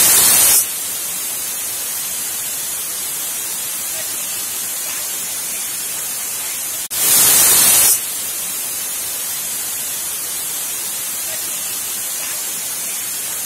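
Stovetop pressure cooker hissing steadily as steam escapes under pressure while it cooks toward its whistle, with two louder bursts of about a second each, one at the start and one about seven seconds in.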